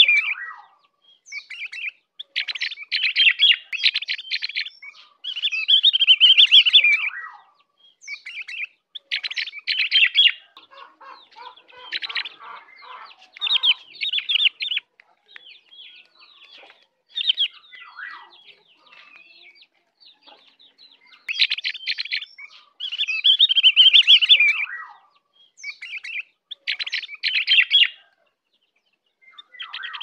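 Ovior (opior) white-eye singing: fast chattering, twittering phrases of about one to two seconds each, repeated with short pauses.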